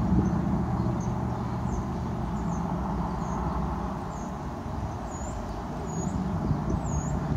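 Jeep Grand Cherokee SRT8's HEMI V8 exhaust fading away over the first second or two, leaving a steady low street-traffic rumble. A bird gives a short high chirp about once a second, louder near the end.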